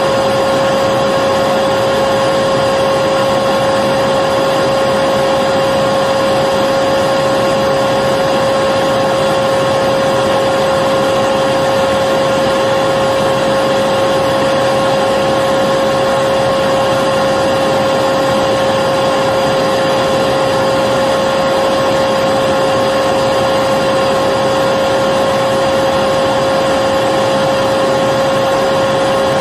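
Electric vacuum cleaner running continuously, a steady motor whine over an even rush of air.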